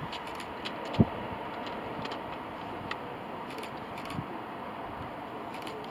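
Airbus A340-600's four Rolls-Royce Trent 500 engines at takeoff thrust, a steady jet roar with a faint whine as the airliner lifts off and climbs. A single low thump about a second in.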